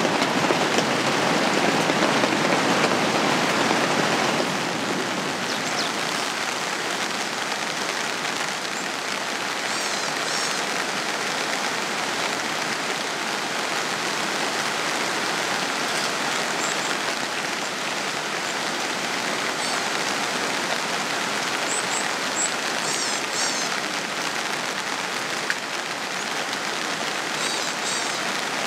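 Steady rain falling, a dense even hiss, a little louder for the first four seconds and then level. A few faint short high chirps come through now and then.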